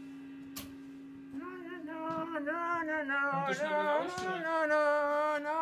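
A sustained instrument note rings on its own, then from about a second and a half in a voice sings a long, wavering note over it, with no drums.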